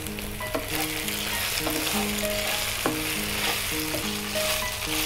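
Oil sizzling steadily under chicken pieces frying in a pan, while a wooden spatula stirs; one sharp utensil tick about three seconds in. A soft background melody plays underneath.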